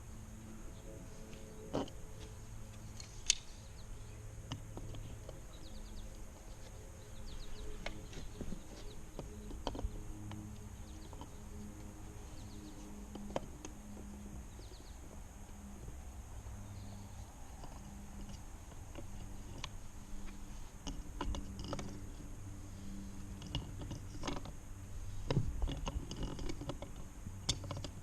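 Occasional light clicks and knocks of plastic pool return fittings being handled and threaded onto the pipe, over a faint steady low hum.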